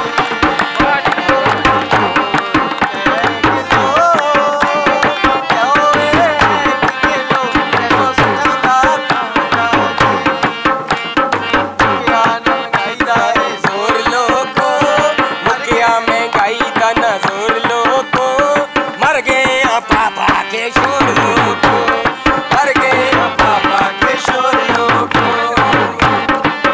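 Instrumental interlude of a Punjabi/Hindko folk mahiye: a dholak barrel drum beating a fast, steady rhythm under a harmonium melody, with hand clapping.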